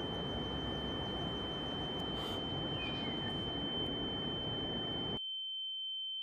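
A steady high-pitched ringing tone, a film sound effect, held over a hiss of background noise; the noise cuts off suddenly about five seconds in while the tone carries on.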